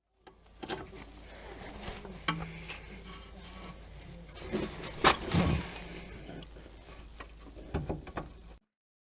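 Metal tools clicking, scraping and rubbing against a car's rear brake caliper over a low steady hum, with a sharp knock about five seconds in and a few more clicks near the end.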